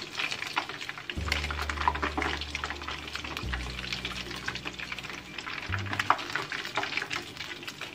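Hot oil sizzling and crackling as battered prawns deep-fry in a wok, over background music with a steady bass line.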